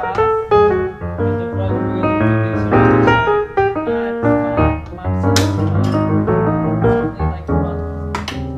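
Background piano music, with notes in quick succession over low bass notes.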